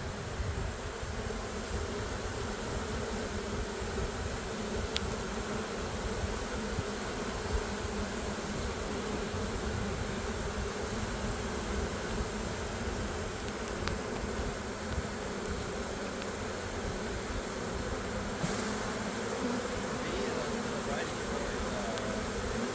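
A swarm of honeybees buzzing steadily in a dense, continuous hum, with two faint clicks along the way.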